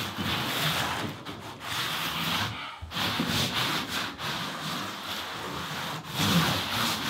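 Hand tiling tool rubbed and scraped across the floor in repeated strokes, with a brief pause about two and a half seconds in.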